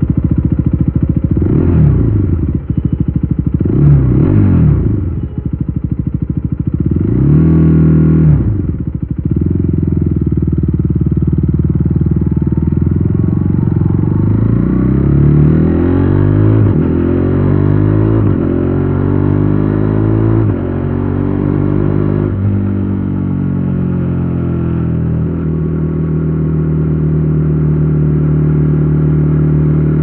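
KTM Duke 390 Gen 3's single-cylinder engine breathing through an Akrapovic exhaust: three quick throttle blips, then the bike pulls away and accelerates up through the gears, the pitch climbing and dropping back at each upshift. Near the end it settles to a steady cruise.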